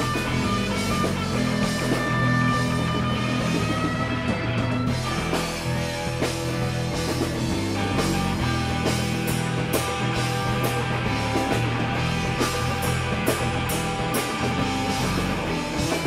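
Live rock band playing an instrumental stretch of the song, with guitar notes held and bent over bass and drums.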